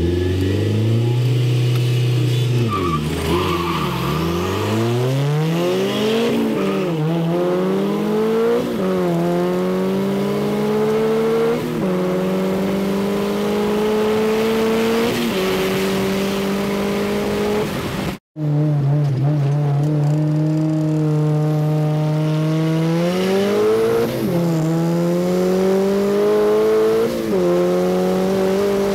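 Turbocharged Acura Integra B18A1 four-cylinder heard from the cabin, pulling hard at full throttle. The engine pitch climbs through the gears, with an upshift every three seconds or so. After an abrupt cut at about two-thirds of the way, another full-throttle pull follows with two more upshifts.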